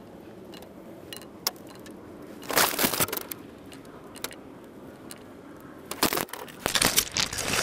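Penknife cutting through a parboiled potato held in the hand, slices dropping into a frying pan: two spells of crunching and crackling, about two and a half and six seconds in, with low background in between.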